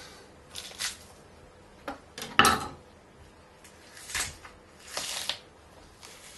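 Wet squishing and tearing as the fat cap is pulled away from a whole dry-aged beef rib eye by hand, in several short bursts, with a sharp knock about two and a half seconds in.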